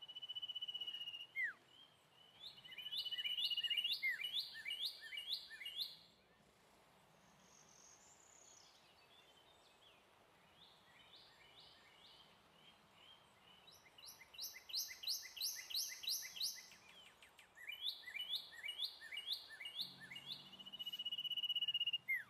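Birds chirping in quick runs of short repeated high notes, about five a second, with a thin steady high trill near the start and again near the end, and several seconds of near silence in the middle.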